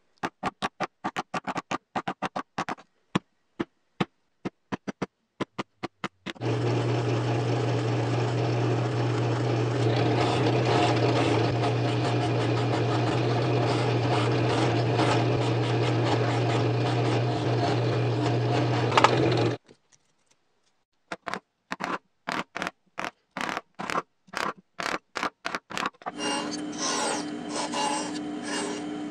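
A run of short, sharp clicks and knocks, then a drill press motor running with a steady low hum for about thirteen seconds while holes are drilled in plywood, stopping abruptly. More quick clicks follow, and near the end a band saw cuts plywood.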